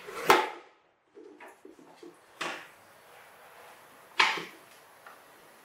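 Plastic toy dump truck knocking and clattering on a hard floor as a baby monkey pushes and climbs on it: three sharp knocks about two seconds apart, the first and last the loudest, with a few lighter knocks between.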